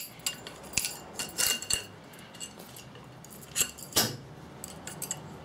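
Small steel fork damper parts clinking and tapping against each other as they are handled and fitted, in a few scattered sharp clicks, loudest about a second and a half in and again near four seconds.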